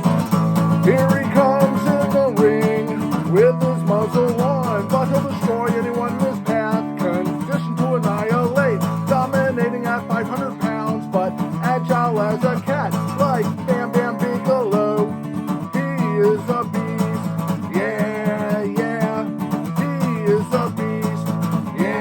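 Instrumental song intro: a strummed acoustic guitar with a lead melody line that bends and wavers in pitch over the chords.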